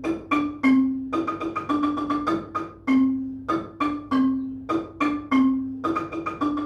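Marimba played with mallets: a simple tune of struck wooden-bar notes, in short phrases of quick notes stepping down in pitch to a longer ringing note.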